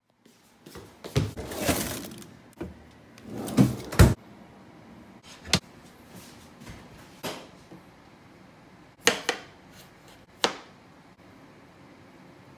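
Kitchen handling noises: rustling and short knocks as gold kiwifruit and a knife are handled on a cutting board on a countertop. The loudest knocks come about four seconds in and as a close pair about nine seconds in.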